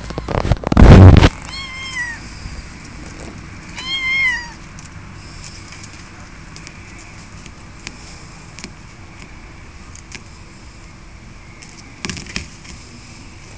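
A kitten meowing twice, two short high meows about two seconds apart, each rising then falling in pitch. Just before them, about half a second in, a loud brief burst of noise is the loudest sound.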